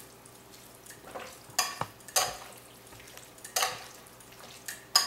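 Metal tongs tossing cubed raw chicken in curry paste in a glass bowl: a handful of sharp clinks and short scrapes of metal on glass, spaced irregularly about a second apart.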